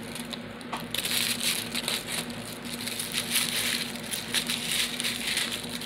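Thin plastic toy-packet wrapper crinkling and crackling as it is opened and handled, starting about a second in.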